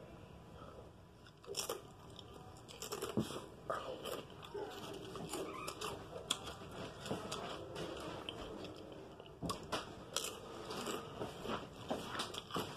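Wavy potato chips being bitten and chewed close to the microphone: many small crisp crunches, starting about a second and a half in.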